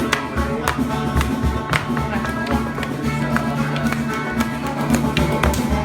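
Live band music in a pub, playing continuously with a steady beat.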